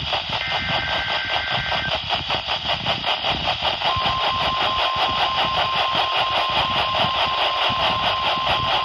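NOAA Weather Radio Emergency Alert System broadcast heard through heavy radio static. The last burst of the SAME digital header screeches for about a second and a half near the start. After a short pause, the steady 1050 Hz weather-radio warning alarm tone begins about four seconds in and holds.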